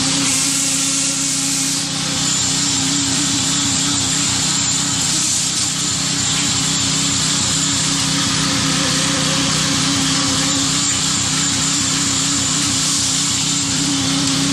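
Concrete mixer pump running steadily, a continuous machine drone with a thin high whine that comes and goes.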